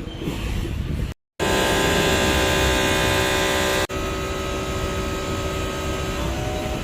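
Steady mechanical hum with several pitched tones, heard in short edited clips. It breaks off suddenly about a second in and again about four seconds in, and its tones shift slightly near the end.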